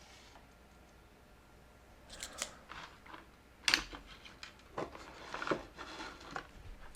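Tools and wire being handled for soldering: a scatter of sharp clicks and light knocks starting about two seconds in, the loudest one near the middle.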